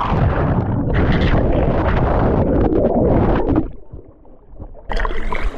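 Wind buffeting the microphone, a loud rumbling rush that dies away a little past halfway and comes back suddenly near the end.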